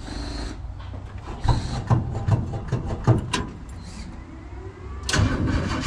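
1966 Chevy Impala's 400 small-block V8 being cranked on the starter from cold, turning over in several bursts of rhythmic strokes without catching; it is hard to start. The loudest burst of cranking comes about five seconds in.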